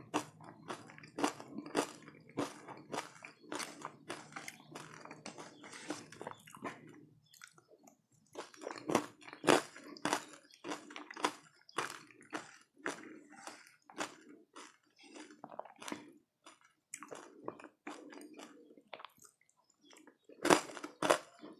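Close-miked chewing and crunching of crunchy food: a fast run of small crisp crackles, then after a short pause louder, separate crunches.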